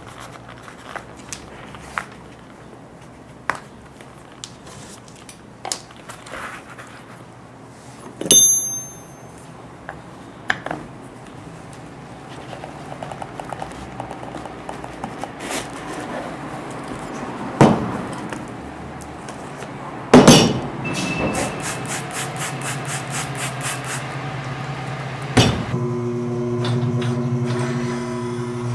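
Scattered knocks and clicks of hand tools on a shoe and workbench, with a ringing metal clink about eight seconds in and a quick run of clicks about twenty seconds in. Near the end the motor of a Blake stitching machine starts and hums steadily.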